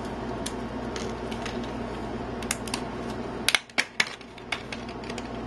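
Small clicks and taps of hands handling a laptop RAM module, with a quick cluster of sharper, louder clicks about three and a half seconds in.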